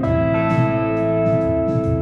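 Solo electric guitar played live through an amplifier: sustained notes ring while a few more notes are picked over them.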